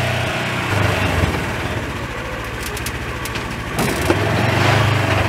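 Polaris Ranger 1000 side-by-side's twin-cylinder engine running at low speed. It eases off in the first second and picks up again about four seconds in.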